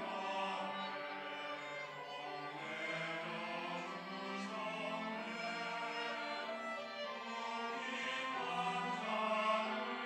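Church choir singing a slow sacred anthem with string accompaniment. Long-held chords swell louder about eight to nine seconds in.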